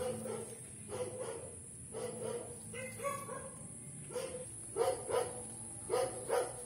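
A dog barking repeatedly, about once a second, with the barks louder near the end.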